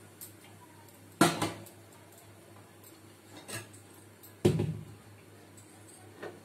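Steel kitchen utensils clanking as they are handled and set down: two loud clanks, about a second in and near the middle, each ringing briefly, with a few lighter knocks between and near the end.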